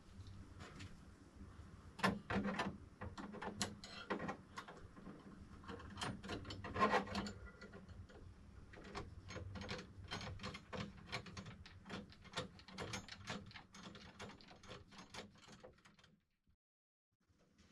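Rapid small clicks and ratcheting ticks from hands working on a newly unboxed Bambu Lab P1S 3D printer and its packaging. The ticks grow denser about halfway through, then cut off suddenly shortly before the end.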